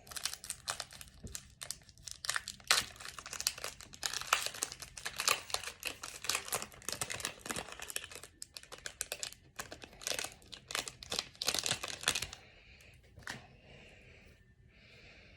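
Foil wrapper of a trading-card pack crinkling and tearing as it is ripped open, dense crackling for about twelve seconds that then stops, leaving a few faint rustles.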